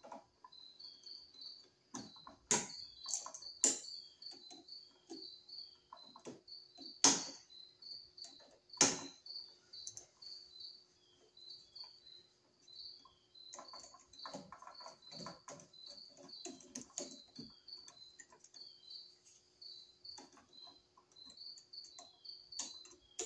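Small hand-tool clicks from needle-nose pliers and a screwdriver working the terminal screws of a wall switch, the sharpest about seven and nine seconds in, with a patch of rapid fiddling in the middle. Behind them, a steady high chirp repeats about three times a second.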